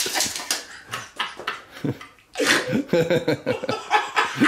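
Human voices without clear words: short vocal sounds that break into laughter-like bursts about halfway through.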